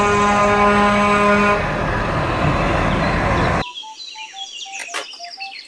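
A Renault truck's air horn sounds one steady note for about a second and a half. Loud engine and road noise from the truck follows, then cuts off abruptly. After the cut there is faint chirping and a few clicks.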